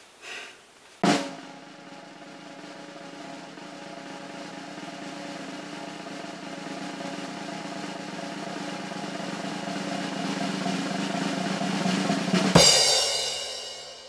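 Drum roll that starts about a second in and swells steadily louder for about eleven seconds, ending in a cymbal crash that rings out and fades.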